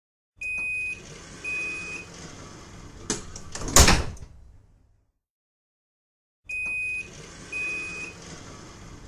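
Metro train doors closing: two high warning beeps over the carriage hum, then the doors slide shut with a loud thud. After a few seconds of silence the sequence starts again with two more beeps.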